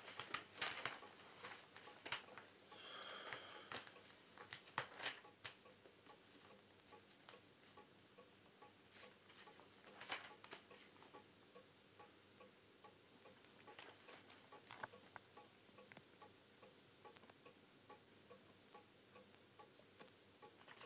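A clock ticking steadily, about two ticks a second. Newspaper pages rustle in the first few seconds and briefly again about ten seconds in.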